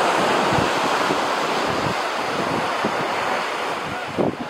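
Surf breaking and washing up a sandy beach, loudest at the start and slowly easing off.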